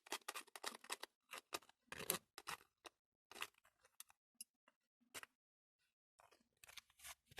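Faint rapid clicks and crinkles of a thin plastic candy tray as a small knife pries a stuck gelatin jelly out of its cell, pausing briefly about five seconds in.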